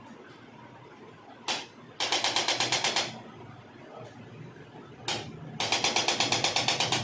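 Rapid mechanical tapping, about twelve taps a second, in two bursts of about a second each, each burst preceded by a single short click.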